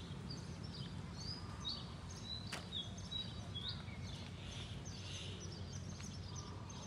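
Small birds chirping in many short, high calls over a low, steady background rumble.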